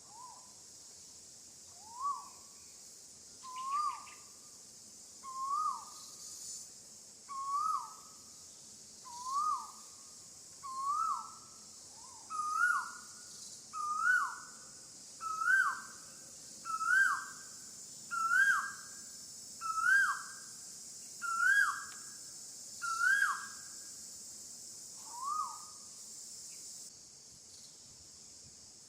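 A bird repeating a short whistled call about every second and a half, each note rising then dropping, the series climbing in pitch and loudness before fading, over a steady high insect drone that stops near the end.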